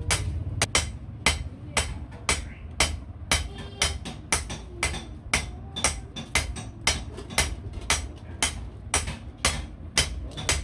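Hammer blows on sheet iron, sharp strikes coming about twice a second with uneven spacing, over a low steady rumble.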